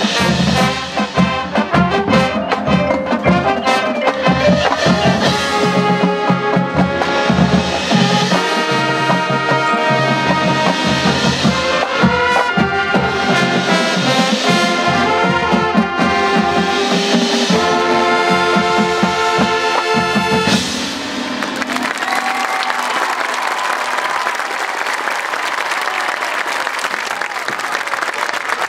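High-school marching band of brass and percussion playing, building to a held final chord that cuts off about twenty seconds in. Crowd applause follows.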